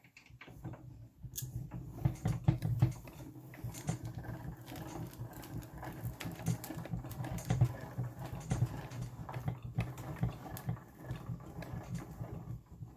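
VEVOR manual die-cutting and embossing machine being hand-cranked, rolling a heavy stack of base plate, 3 mm and 2 mm plates and an embossing folder through its rollers: a steady low rumble with irregular clicks and creaks, starting about half a second in and stopping just before the end.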